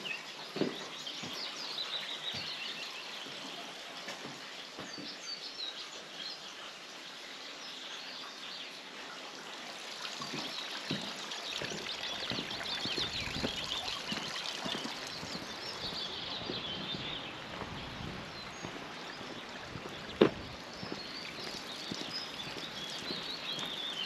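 Wild birds chirping and singing, with a person's footsteps on a stone platform and one sharper knock about 20 seconds in.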